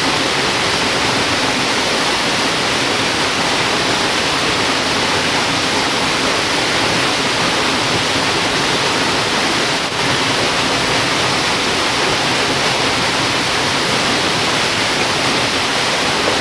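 Rushing river water, a steady loud hiss of flowing current.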